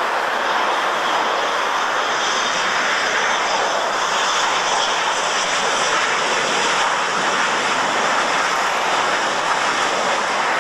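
McDonnell Douglas MD-80-series airliner's two rear-mounted Pratt & Whitney JT8D turbofans running at high power on the takeoff roll: loud, steady jet engine noise.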